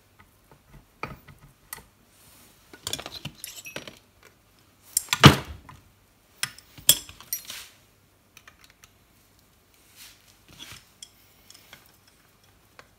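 Metal parts of a lathe headstock clinking and knocking under hand work: scattered short clicks in a few clusters, with the loudest knock about five seconds in.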